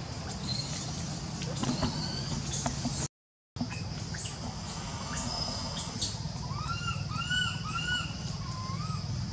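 Outdoor ambience of a steady low hum, cut off briefly about three seconds in. Faint high chirps follow, then a run of about four short, rising-and-falling calls in the second half.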